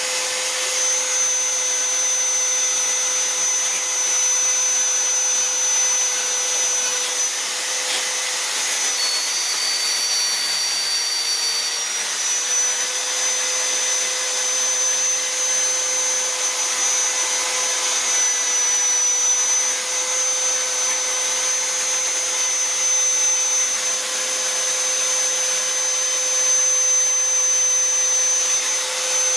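Handheld electric die grinder with a rotary carving burr running steadily with a high whine and hiss as it grinds into a wooden carving.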